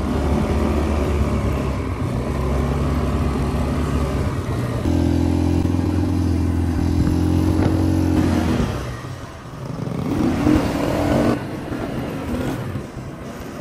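Quad bike engine running while under way, with a steady rush of wind noise over it. The engine holds steady revs, eases off about nine seconds in, then revs up again.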